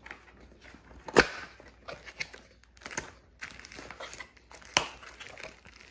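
A white cardboard product box being opened by hand, its flaps and tray rubbing and snapping, with a plastic bag crinkling inside. The sharp crackles come in irregular bursts, the loudest snap about a second in and another near five seconds.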